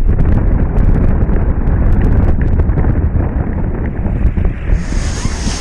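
Jet boat running fast, heard as a steady low rumble of wind buffeting the mounted camera's microphone, with the boat's engine and water rush blended in. A brighter hiss of water spray comes in near the end.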